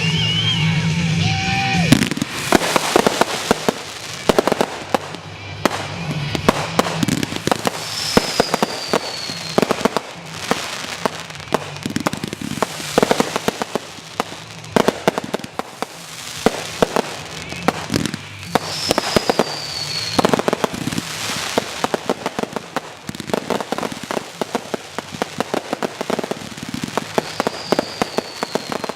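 Music for about the first two seconds, then fireworks going off in a rapid, dense string of bangs and crackling, with a short falling whistle three times.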